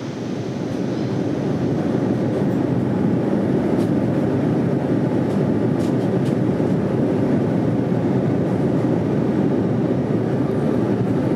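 Steady cruise noise of a Boeing 787 heard inside the passenger cabin beside the wing: an even rumble of engine and airflow that fades in over the first second and then holds level.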